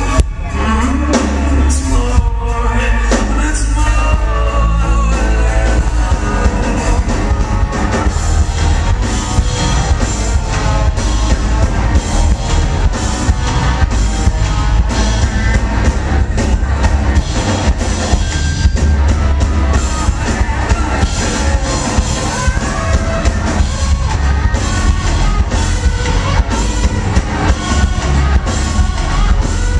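Rock band playing live: a sung lead vocal over a drum kit and electric guitar through a Marshall amplifier. It is loud and heavy in the bass, as a small camcorder microphone picks it up.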